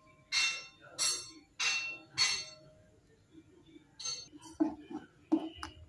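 A metal utensil tapped four times against the rim of a metal pressure cooker, each tap ringing briefly, about two-thirds of a second apart, knocking spice powder off into the pot. A few lighter clinks follow near the end.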